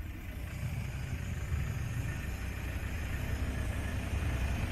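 Off-road pickup engines running at low speed, a low steady rumble that grows slowly louder as a pickup draws close alongside.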